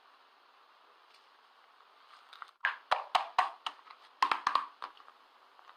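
Faint steady hiss, then about two seconds of quick, sharp clicks and knocks, a dozen or so, from an object being handled by hand.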